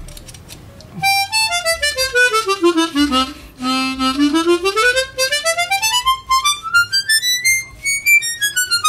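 Hohner Chrometta 12 chromatic harmonica played in quick note-by-note runs: down to a low held note about three seconds in, then climbing steadily to a high note near the end and starting down again. It is a test play after the reeds' gapping was adjusted, checking that the harmonica is more airtight.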